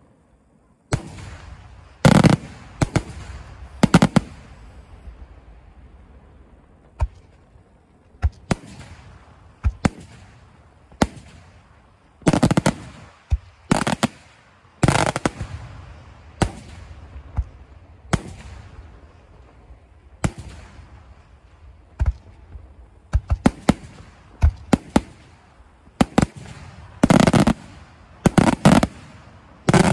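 Aerial firework shells bursting in an irregular barrage of sharp bangs, some single and some in rapid clusters, with the loudest groups a couple of seconds in, around the middle and near the end.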